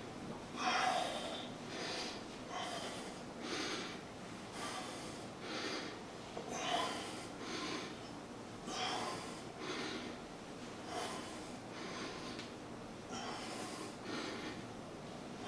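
A man breathing hard under exertion, with a short forceful exhale through the nose about once a second, in time with the side-to-side twists of a seated boat-pose core exercise.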